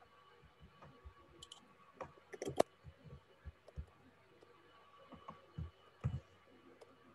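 Computer keyboard keys clicking irregularly as a command is typed, with a quick cluster of keystrokes about two and a half seconds in.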